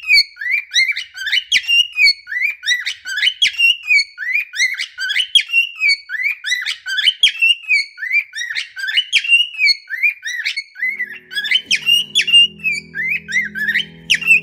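Male cockatiel singing: a long run of short, rising whistled notes, a few each second, repeated over and over.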